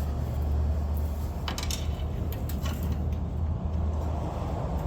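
A few sharp clicks as a zip tie is cut and pulled from a riding mower's throttle and choke linkage, over a steady low hum.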